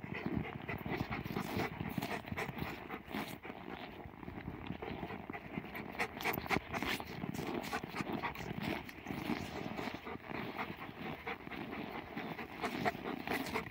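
Footsteps crunching in packed snow, a dense irregular run of crunches, with a dog panting close by.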